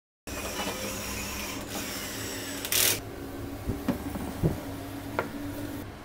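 Wood pieces being handled and fitted against a wooden cage frame: a brief scraping rush about three seconds in, then a few light knocks, over a steady hum.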